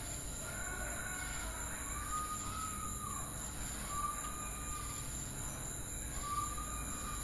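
Ambient nature sound-effect track: a steady high-pitched chorus, with four short whistled calls spread through it.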